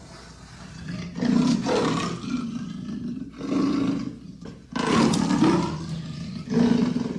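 Amur leopard roaring in four calls: a long one starting about a second in, then three shorter ones with brief pauses between.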